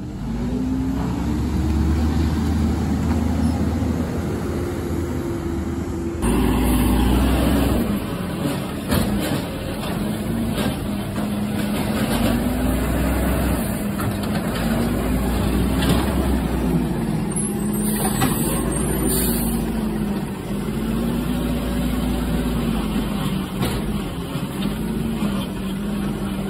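Garbage truck's diesel engine revving up and down again and again as it drives the hydraulic packer compacting trash. The revs are held high for several seconds, then rise and fall about every two to three seconds, with a few short knocks and hisses among them.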